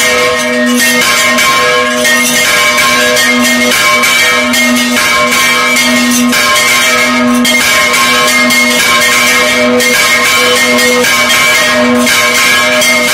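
Several church bells on wooden counterweight yokes being swung full circle by hand (a Spanish volteo), clanging over and over in a steady run of overlapping strikes, heard close up inside the belfry.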